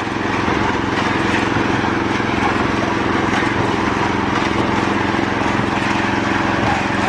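Engine-driven portable concrete mixer running steadily, its small engine and turning drum churning a batch of concrete. It grows louder over the first half second, then holds level.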